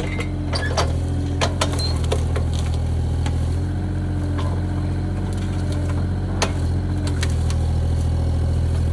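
Bobcat E35 mini excavator's engine running steadily at an even speed, with a few sharp knocks and clicks over it.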